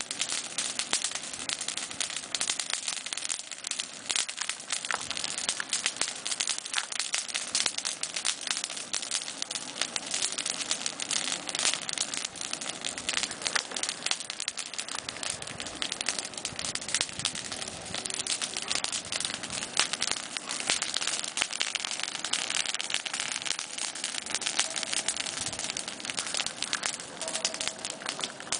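Bonfire of pruned olive branches crackling, a dense steady stream of small sharp pops.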